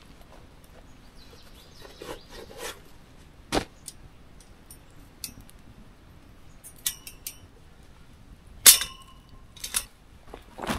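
Metal camp gear being handled: scattered clicks and clinks, a few of them ringing briefly. The loudest clink comes near the end and rings for under a second.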